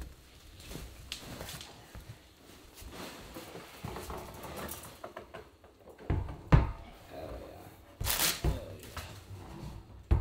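Heavy wooden dining table with steel X-legs being set down and shifted on a hardwood floor: scattered knocks and handling noise, with heavier thumps about six and eight seconds in and a sharp knock near the end.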